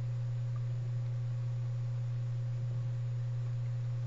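A steady low hum with a fainter, higher steady tone above it, unchanging in pitch and level.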